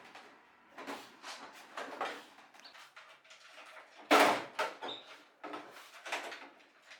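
Irregular knocks, clatters and scrapes of objects being handled, the loudest about four seconds in.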